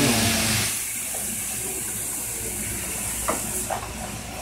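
N-gauge model trains running on the layout track: a steady rushing hiss, with a short low hum at the start and a few faint clicks a little over three seconds in.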